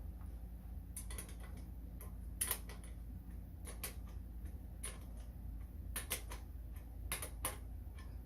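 Irregular sharp clicks and clinks of small metal hardware and a hand tool being worked while nuts and washers are fitted and tightened on a toy ride-on truck's suspension, over a steady low hum.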